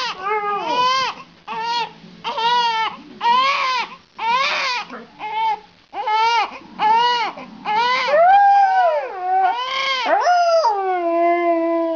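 A newborn baby crying in short repeated wails, with a Siberian husky howling along. Near the end a long howl slides down in pitch and holds.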